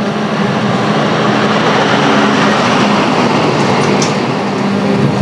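A heavy vehicle passing close by on a highway: engine hum and tyre roar that swell to their loudest about two to three seconds in, then ease off.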